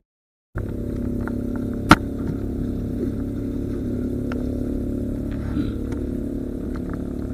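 A steady low engine drone, starting after a brief cut to silence at the very beginning. A single sharp click, the loudest sound, comes about two seconds in, and a few faint ticks follow.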